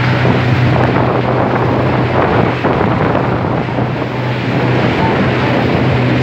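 Motorboat running at speed: a steady low engine drone under heavy wind buffeting on the microphone and the rush of water from the hull and wake.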